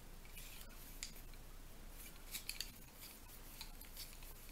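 Faint, irregular clicking of wooden double-pointed knitting needles tapping against each other as stitches are knitted.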